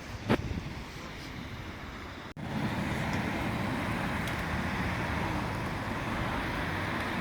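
Steady outdoor background noise, a low rumble with hiss, broken by a single sharp click about a third of a second in. A little over two seconds in it drops out for an instant and comes back louder and steadier.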